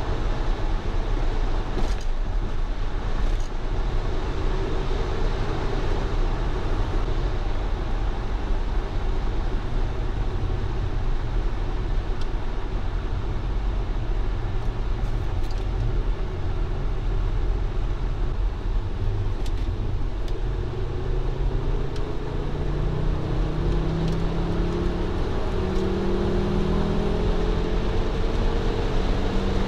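Volvo S60 R's turbocharged 2.5-litre inline-five heard from inside the cabin at Autobahn speed, under steady tyre and wind noise. Over the last third its drone rises steadily in pitch as the revs climb with the car accelerating.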